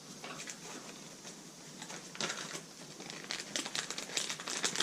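Crinkling with quick small clicks and scrapes from hand work on a hydraulic brake piston housing while its port O-rings are being changed, growing busier in the second half.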